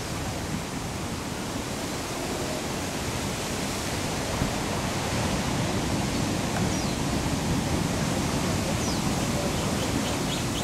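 Heavy surf breaking and washing over lava rocks: a steady rush of whitewater that grows louder about four seconds in.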